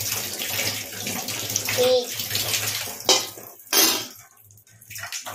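Tap water running into a stainless steel kitchen sink as a steel ladle is rinsed under it, stopping about three seconds in. Two sharp knocks follow a little apart.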